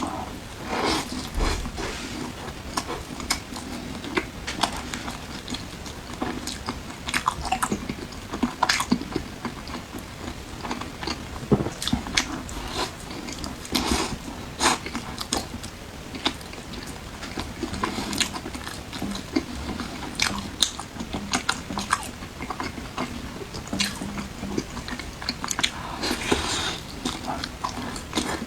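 Close-miked eating: a person biting and chewing food, with many irregular short wet clicks and crackles.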